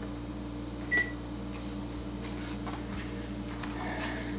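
Steady electrical hum with a level low tone, with one sharp metal clink about a second in and a few faint clicks later, as of a metal utensil against an aluminium baking pan.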